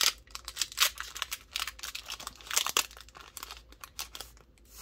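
Foil Pokémon booster pack wrapper crinkling in the hands as it is torn open, with irregular sharp crackles, a few of them louder.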